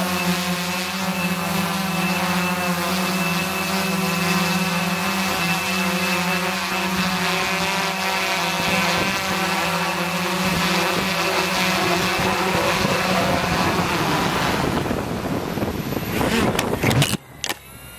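Sky Hero Spyder6 hexacopter's motors and propellers buzzing steadily in hover, heard close up from its onboard camera. Near the end the drone comes down into the grass with a few sharp knocks as a propeller snaps, and the motors cut off suddenly.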